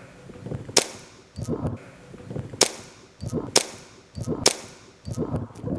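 Airsoft gun firing single shots: four sharp cracks, about a second apart, with lower muffled noises in between.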